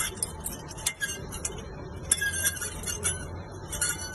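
Corroded brakes on a Ford squeaking and scraping in short, repeated high-pitched bursts with clicks, over a steady low hum. The owner puts the squeak down to corrosion, with the brake pads not moving at all.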